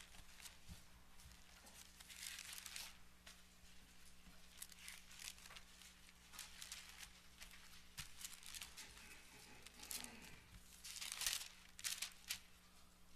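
Bible pages being turned at the pulpit microphone while looking up a verse: a series of soft, quick paper rustles and swishes, busiest about two seconds in and again near the end.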